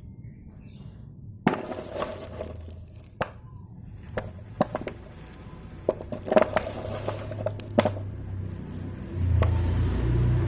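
Metal lathe running and cutting metal, with a low motor hum and many sharp metallic clicks and clinks that start suddenly about a second and a half in; the hum grows louder near the end.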